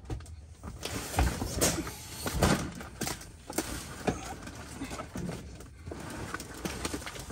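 Cardboard boxes full of hardcover books being shifted and dragged by hand: a run of knocks, scrapes and cardboard rustling, with the loudest thumps about a second and two and a half seconds in.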